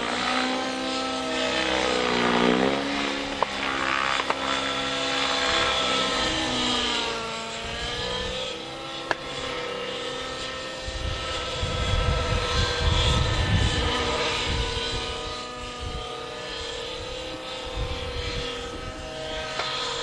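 Radio-controlled helicopter flying aerobatics, its whine rising and falling in pitch as it manoeuvres. Wind buffets the microphone with a low rumble in the middle.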